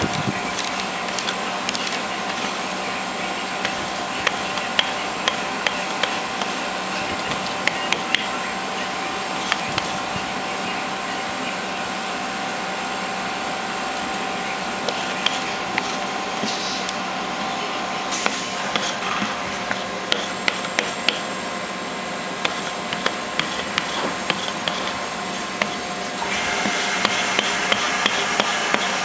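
Sticky lint roller rolled over knit fabric, crackling with many small scattered clicks, over a steady machine-like hum and hiss that grows brighter near the end.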